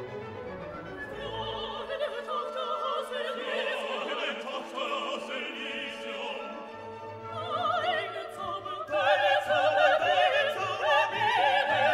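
Background music: an operatic voice singing with strong vibrato over an orchestra, growing louder about three-quarters of the way in.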